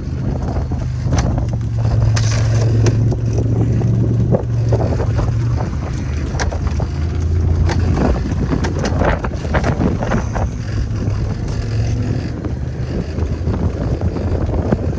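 Honda Talon 1000X-4 side-by-side's parallel-twin engine running steadily as it drives, its tone dropping slightly about five seconds in, with scattered knocks and rattles.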